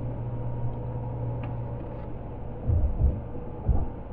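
Steady low drone of a vehicle driving, heard from inside the cab, which eases a little about halfway through. Three dull low thumps follow in the second half.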